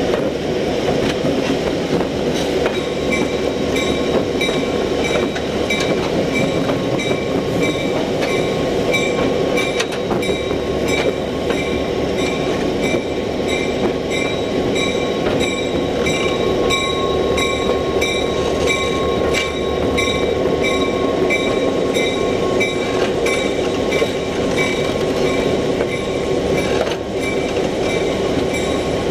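EMD SW9 switcher locomotive rolling along the track, heard close to its wheels and truck: a steady loud rumble of steel wheels on rail and running gear. About two seconds in, a high ringing that pulses about twice a second joins it and keeps on.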